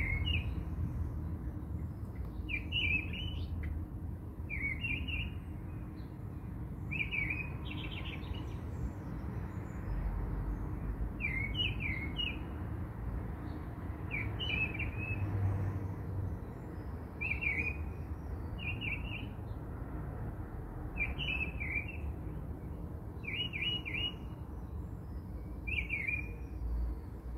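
A small bird chirping in short, quick phrases every two to three seconds, over a steady low rumble.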